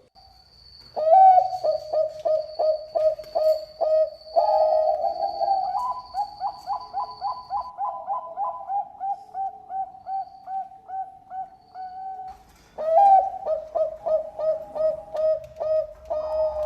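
Zebra dove of the Thai 'Bangkok' perkutut song strain singing: long runs of short cooing notes, about two to three a second, in two phrases, the second starting about 13 seconds in. A faint steady high whine runs through the first half.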